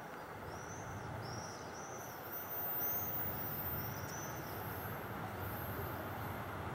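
ER2T electric multiple unit approaching with a steady low rumble that grows louder about two seconds in. A bird calls over it, a run of short chirps about half a second apart.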